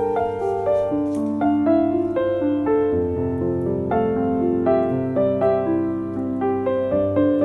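Background instrumental music led by piano, a steady run of notes.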